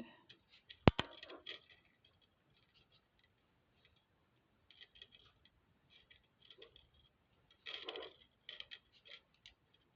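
Faint clicking and light rustling of soft silver wire and beads being twisted and wrapped by hand, with one sharp click about a second in.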